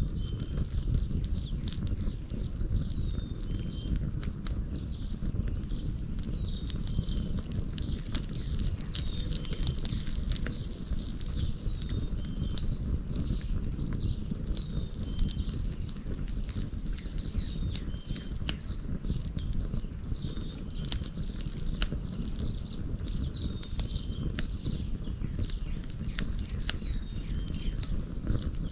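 A wood fire crackling with sharp pops over a steady low rumble, while a bird repeats a short chirping call every second or two.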